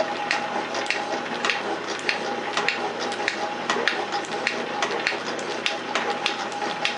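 Metal shaper running, its ram stroking back and forth on a fine finishing pass across a hard, high-silicon cylinder casting. Under a steady tone, sharp clicks come about twice a second.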